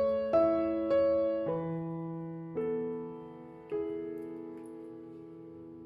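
Background music: slow solo piano, notes and chords struck one after another and left to fade, the last one ringing on for about two seconds.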